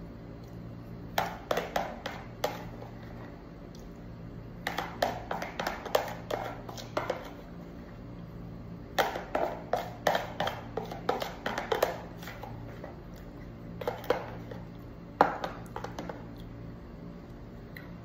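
A metal spoon scraping and tapping inside a plastic tub as thick bacaba pulp is scooped out, in several bursts of quick clicks and scrapes with pauses between.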